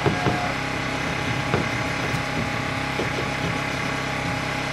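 An engine running steadily at idle, a constant hum, with a few light knocks in the first second and a half.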